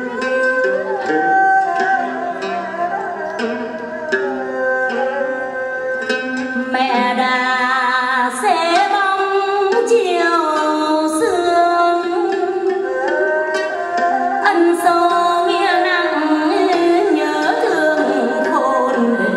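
Vietnamese hát văn song with a plucked-string and percussion accompaniment. It opens with an instrumental passage marked by regular sharp clicking beats, then a woman's voice enters about seven seconds in, singing with a wavering, ornamented line over the instruments.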